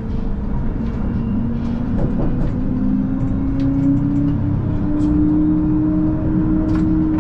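Siemens Combino C1 tram running on its rails: a steady low rumble with the whine of its electric traction drive, which rises in pitch about two seconds in as the tram gathers speed and then holds. Light clicks and rattles come and go.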